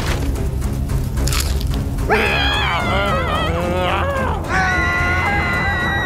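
Cartoon characters wailing over background music: a wavering cry begins about two seconds in and turns into a long held wail that slides slightly down in pitch. A few sharp cracks sound in the first second or two.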